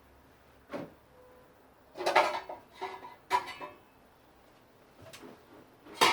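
Hard objects clattering in a few separate knocks with a brief metallic ring, a cluster in the middle and the loudest knock at the end.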